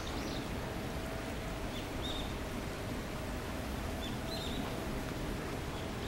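Small birds chirping: short high calls, about half a dozen, scattered across a steady background hiss of outdoor ambience.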